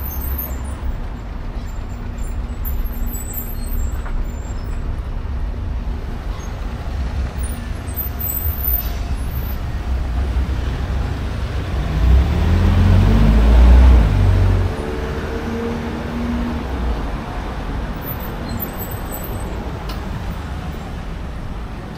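Street traffic rumbling steadily. About twelve seconds in, a vehicle passes close, its engine note rising and then falling, and this is the loudest sound.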